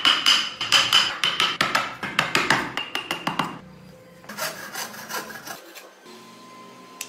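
Rapid scraping strokes of a hand tool on a small block of wood, about four or five a second, pausing briefly and then a few more strokes.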